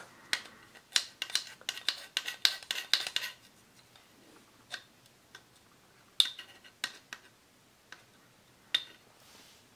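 Steel scissor blade clicking and scraping against a plastic tool magnetizer as it is drawn again and again through the magnetizing slot: a quick run of clicks over the first three seconds, then a few single clicks.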